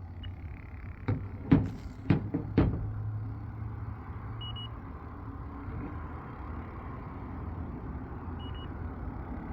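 Four sharp knocks of handling in the first three seconds over a low hum, then two short high beeps a few seconds apart from an electronic refrigerant leak detector probing the coil.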